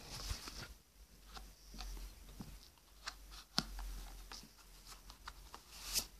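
Faint scattered clicks and taps from toys being handled off camera, over a low steady hum. A sharper click comes about three and a half seconds in and another near the end.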